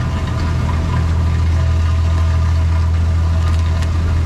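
Sportfishing boat's engine running steadily, a low, even drone.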